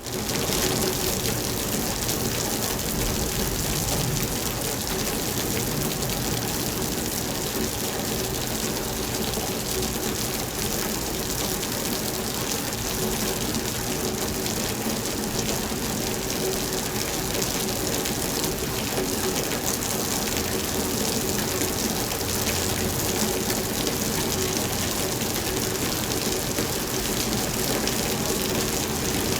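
Steady rain falling, a dense, even hiss of drops with no breaks or thunder.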